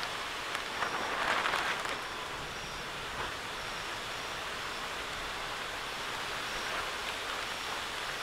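Steady rain pouring down, with close drops tapping now and then; it swells briefly about a second in.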